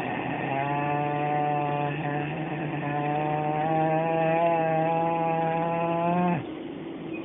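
A patient's voice holding one long, steady open vowel ("ahh"), with slight drifts in pitch and a couple of short breaks, that stops about six seconds in, as done during an oral snoring-laser treatment.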